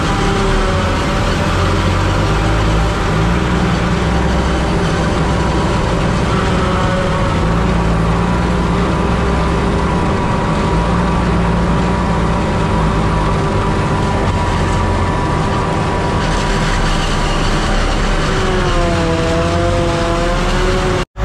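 Claas self-propelled forage harvester chopping standing corn close alongside, its engine and header making a loud, steady mechanical drone, blended with the diesel engine of the dump truck it is heard from. Near the end the pitch wavers up and down a few times.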